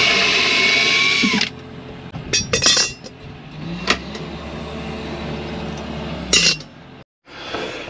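Cordless drill-driver whirring at a steady pitch for about a second and a half on a screw in a wooden drawer, then stopping. A few clicks and knocks follow, then a quieter steady hum.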